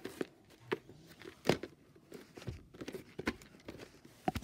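Plastic VHS clamshell case handled and turned over by hand: scattered clicks, knocks and rustles, with the loudest knocks near the end.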